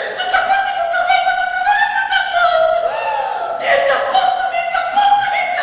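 A woman singing in a high voice, with long held notes that waver and glide slowly up and down.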